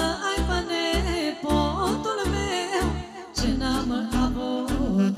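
A woman sings a Romanian lăutărească song with a wavering vibrato through a microphone, over an amplified backing band with a pulsing bass beat and percussion.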